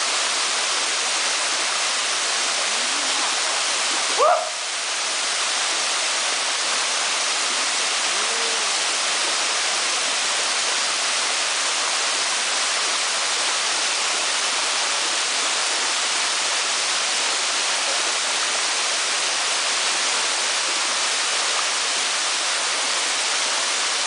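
Waterfall pouring steadily into its plunge pool, a constant rushing hiss. A short rising call cuts through it about four seconds in.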